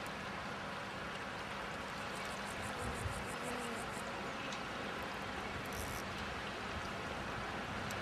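River water flowing in a steady rush. About two seconds in there is a brief run of faint, rapid ticks, and a soft thump comes about a second later.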